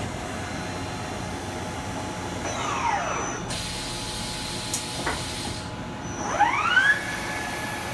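Mori Seiki MV-55 machining centre spindle running, its motor whine falling away about three seconds in, then rising again near the end and settling into a steady tone as the spindle spins back up to speed.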